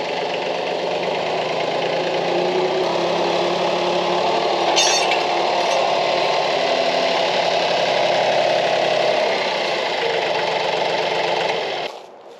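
Branson 2515H compact tractor's diesel engine running steadily while its front loader lifts on a boom pole, with a short high-pitched hiss about five seconds in. The engine sound cuts off suddenly near the end.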